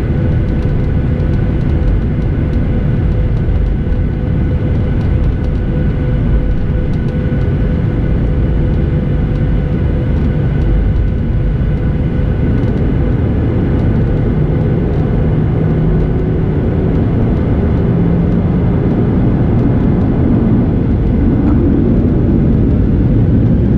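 Cabin noise of a Boeing 737-800 taxiing, its CFM56 engines running at low power: a steady low rumble with faint steady whine tones, growing slightly louder near the end.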